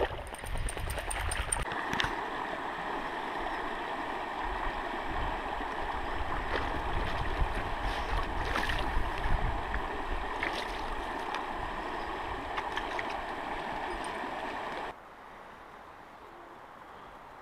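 Shallow river running over rocks: a steady rush of flowing water with a few light clicks. About 15 s in, it drops abruptly to a much fainter hiss.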